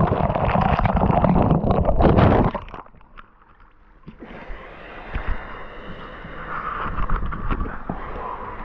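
Icy water sloshing and splashing close to the camera, mixed with knocks and rubbing from the camera being handled. It is loud for the first two and a half seconds, drops away suddenly, and returns more softly with scattered small knocks.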